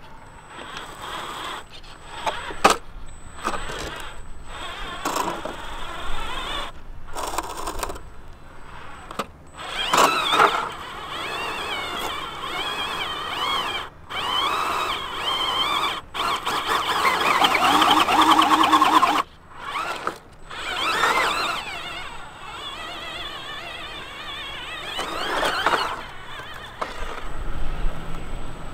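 Whine of an RC scale crawler truck's small electric motor and gears, wavering up and down in pitch with the throttle, broken by several abrupt cuts.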